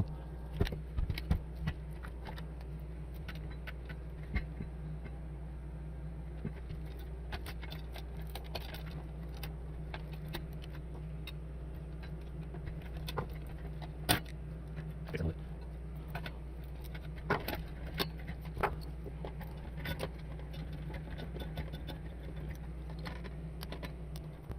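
Scattered clicks and light metallic taps from a screwdriver and small screws as a bench power supply's front panel is taken apart, the loudest about 14 seconds in, over a steady low hum.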